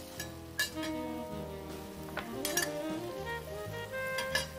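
Background music with a steady beat over a wok stir-fry: a metal spoon clinks and scrapes against the wok a few times, with food sizzling in the oil underneath.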